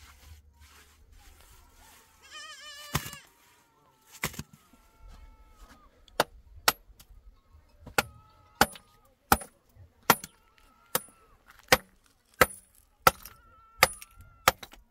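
Hammer blows on stone, about one every 0.7 seconds from about six seconds in, chipping rock apart. A goat bleats once, a little under three seconds in.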